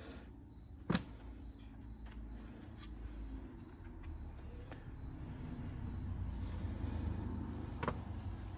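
Light clicks and taps of small latch parts and a screw being handled, with two sharper clicks about a second in and near the end, over a low steady hum. A cricket chirps faintly and evenly in the background.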